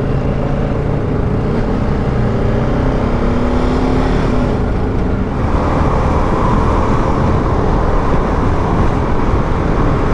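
BMW G310 GS single-cylinder motorcycle on the move: the engine note rises in pitch as it accelerates over a couple of seconds. About halfway through, a steady wind rush grows louder and covers it.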